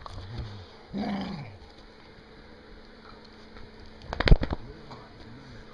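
Blue heeler mix chewing a hard nylon Nylabone. She gives a short, low, falling vocal grumble about a second in. About four seconds in comes a quick cluster of sharp clicks of teeth on the nylon bone, the loudest sound.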